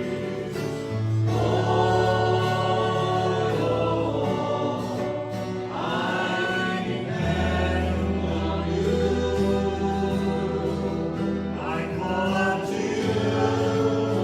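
Christian worship song: several voices singing together over an instrumental accompaniment with long held bass notes.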